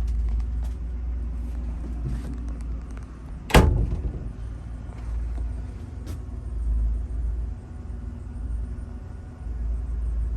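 A low rumble with one loud sharp bang about three and a half seconds in and a lighter knock a few seconds later.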